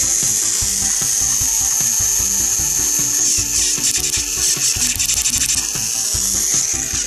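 Battery-powered toy train (TrackMaster Donald) running on test after repair: a steady high-pitched whir from its small motor and gears, with light clattering from the wheels. Background music plays underneath.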